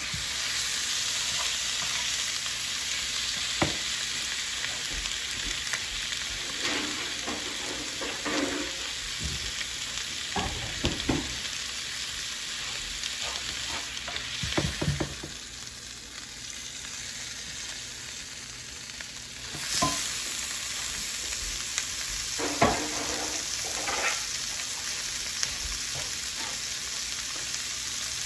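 Beef strips sizzling in an electric skillet, a steady hiss of frying, with scrapes and knocks from a utensil turning the meat in the pan several times. The sizzle dips quieter about halfway through, then comes back up sharply.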